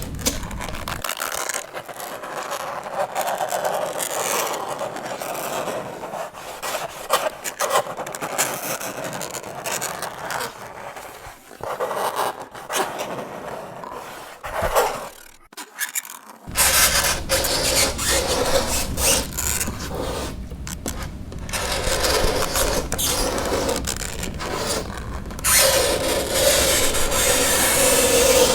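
Fingernails scraping across a chalkboard in repeated irregular strokes, with a brief lull about halfway. A drawn-out squeal rises near the end.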